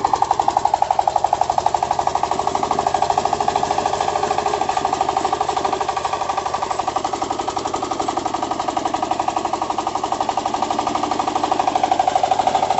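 Single-cylinder diesel engine of a công nông farm truck chugging steadily with rapid even firing pulses, under load as it drives the front winch that hauls the cassava-laden truck up a rocky slope. The sound eases a little midway and swells again near the end.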